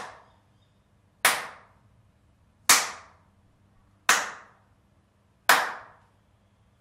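Four single hand claps, about one every second and a half, each followed by a short decaying ring of reverberation and slap-back echo off the bare plywood walls and ceiling of an empty, untreated studio room: a clap test of the room's acoustics before any acoustic treatment goes in.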